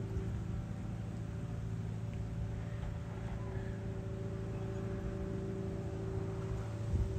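Hydraulic excavator's diesel engine running at a steady pitch while it digs, a low even hum.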